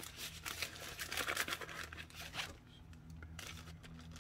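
Plastic packaging pouch crinkling as it is handled and opened: dense crackling for the first two and a half seconds, then sparser and quieter.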